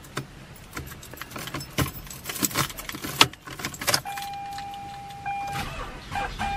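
Car keys jangling and clicking, a string of sharp light clicks. About four seconds in, a steady electronic warning tone from the car starts and then cuts in and out near the end.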